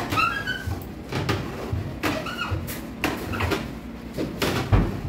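Sliding door panels of a melamine wardrobe cabinet being moved and handled: a run of knocks and clacks with short high squeaks, and a heavy low thump near the end.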